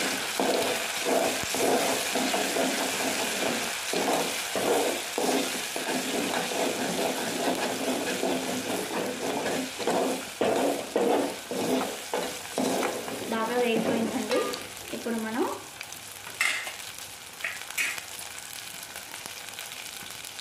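Sliced onions sizzling in hot oil in a metal pot, stirred with a plastic spatula in repeated strokes. About three-quarters of the way through the stirring stops and a quieter, steady sizzle goes on, with a few small pops.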